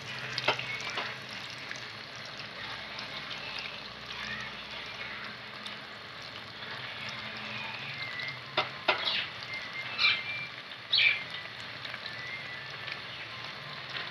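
Batter-coated chicken mince pakoras deep-frying in hot oil in an aluminium karahi: a steady sizzling hiss, with a few sharp clicks standing out in the second half.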